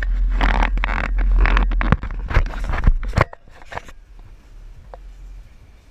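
Four-wheel drive lurching over a rutted dirt track, heard from inside the cabin: a low engine and road rumble with repeated knocks, rattles and scrapes from the body and suspension. About three seconds in, it all falls much quieter.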